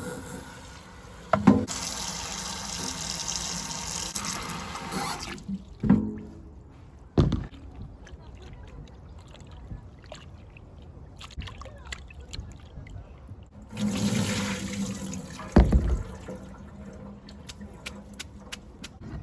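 Water running or being poured in two stretches of a few seconds each, with a few sharp knocks of things being set down.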